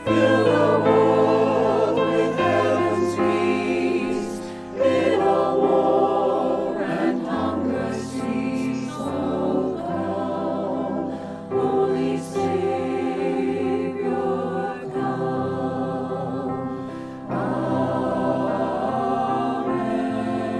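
A choir singing a hymn with instrumental accompaniment holding low sustained notes under the voices.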